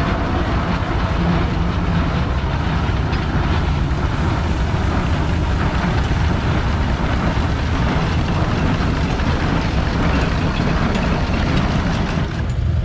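Steam traction engine running as it drives slowly past, a steady, loud mix of engine and exhaust noise with no distinct beats.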